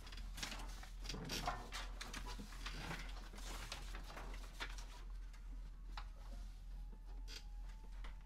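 Sheet music pages being turned and shuffled, paper rustling and crackling, busiest in the first half and quieter after about five seconds.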